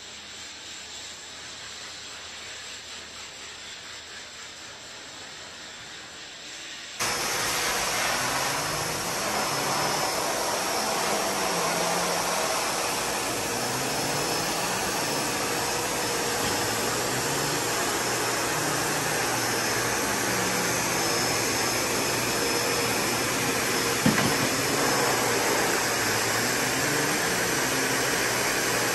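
Steady rush of air from a dog-grooming blow dryer running. The hiss jumps much louder about seven seconds in and then holds steady, with one sharp click near the end.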